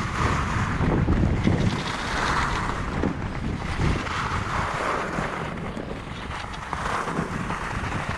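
Wind buffeting the microphone during a fast ski descent, with the hiss and scrape of ski edges on packed, groomed snow swelling and fading through the turns.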